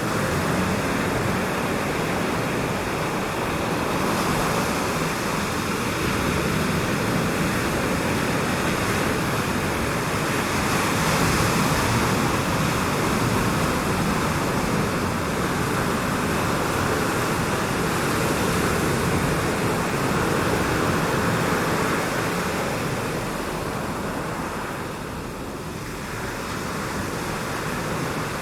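A steady rush of moving air, like wind, that eases a little near the end and then builds again.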